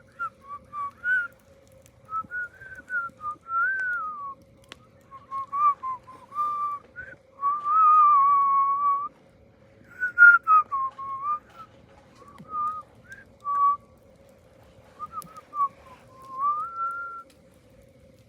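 A person whistling a tune: short phrases of gliding notes with pauses between them, and one longer held note about halfway through. A steady faint hum runs underneath.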